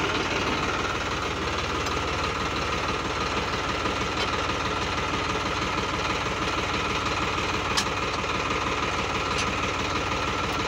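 Diesel engine of an Eicher 557 tractor idling steadily, with a single sharp click about eight seconds in.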